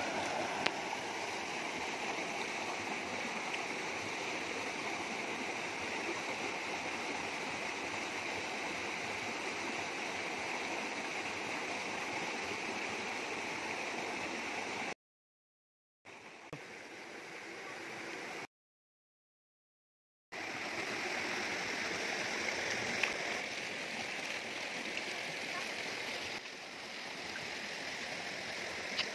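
Shallow rocky stream rushing over boulders in a steady hiss of white water. The sound drops out twice into a second or two of dead silence.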